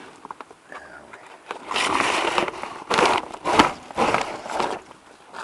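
Handling noise: a long rustle, then several sharp knocks and clatters as parts are moved about.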